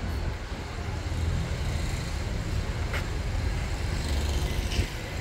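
Outdoor street ambience: a steady low rumble, with one short click about three seconds in.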